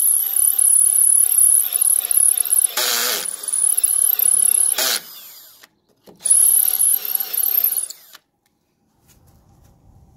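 Cordless drill boring into brick with a large bit: the motor whines steadily with a couple of louder grinding bursts for about five seconds, stops, runs again for under two seconds and then stops.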